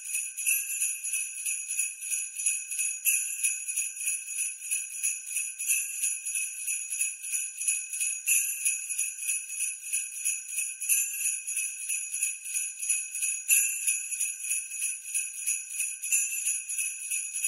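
Sleigh bells jingling in a steady, even rhythm of several shakes a second, with a stronger shake about every two and a half seconds.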